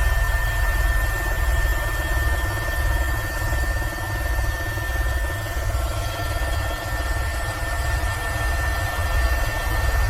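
Airbus H130 single-engine turbine helicopter in flight: a steady low rotor throb under a constant high turbine whine, with a second fainter tone joining about six seconds in.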